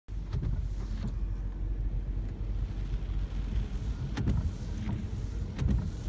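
Typhoon wind and rain heard from inside a car cabin: a steady low rumble with a few scattered sharp taps.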